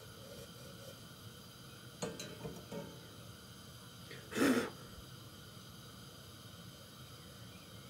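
A warmed kitchen knife scraping along the shell of a hollow chocolate Easter egg in a few short scrapes about two seconds in, then a short, loud breath out through the nose about halfway through.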